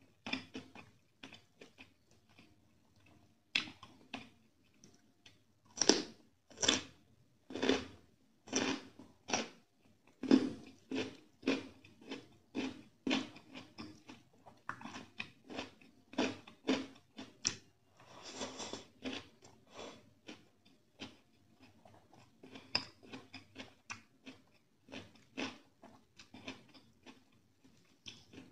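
Close-miked chewing of rice and chicken curry, a steady run of wet mouth sounds at about one and a half chews a second.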